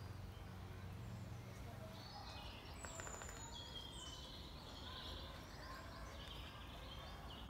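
Faint woodland birdsong: several birds chirping and whistling, busier from about two and a half seconds in, over a low hum at the start.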